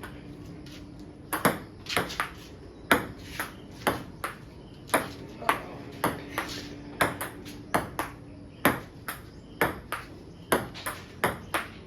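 Table tennis rally: the ball clicking off the paddles and the table in a quick, uneven run of sharp ticks, starting about a second in.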